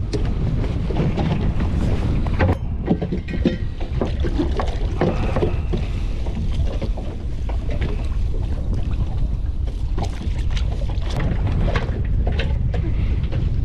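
Wind buffeting the microphone in a steady low rumble, with scattered knocks, clicks and rubbing as anchor rope is handled and tied off at the bow of a small fibreglass boat.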